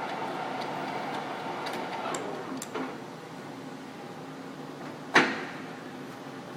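Timemaster/Gurutzpe gap-bed engine lathe running at a low spindle speed with a steady gear hum. Its note falls away about two and a half seconds in, and a single sharp clunk comes about five seconds in, as the lathe is stepped to a lower speed.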